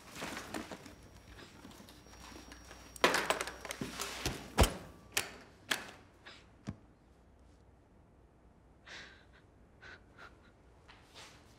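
Sharp knocks and clicks of small objects in a small room. A rustle comes about three seconds in, then half a dozen hard knocks over the next few seconds, and a few soft short sounds near the end.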